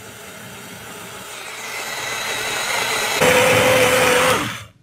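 Extsud portable USB blender's motor running, its blade spinning water into a vortex, with a steady whine that joins about three seconds in. Near the end the motor stops and winds down with a falling whine.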